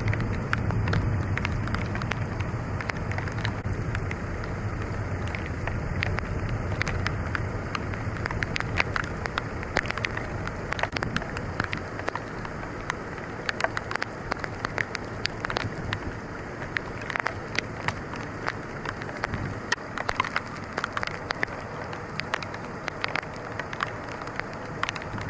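Rain falling on orange trees and flooded ground: a steady wash of noise dotted with many small drop ticks, with a low rumble in the first second or two.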